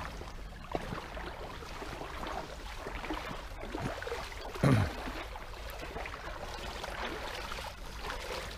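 Shallow stream water sloshing and splashing as a child wades through it in boots, over a steady wash of water noise. A short voice sound comes about halfway through.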